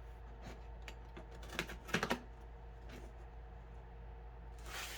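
Light clicks and taps of hands working at a taped cardboard package, a quick cluster of them about two seconds in and a short rustle near the end.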